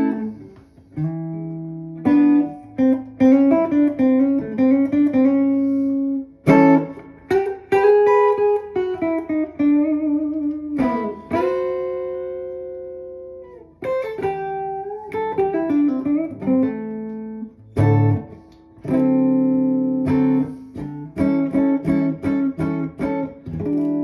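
Semi-hollow-body electric guitar playing an improvised blues: picked single-note phrases with notes bent and slid in pitch, each phrase left to ring before the next, with short breaks between phrases.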